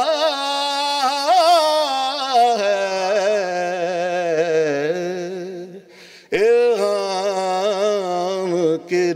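A man's voice singing an Urdu devotional poem without accompaniment, in the drawn-out tarannum style of mushaira recitation, holding long wavering notes. He breaks briefly for breath about six seconds in, then starts the next phrase.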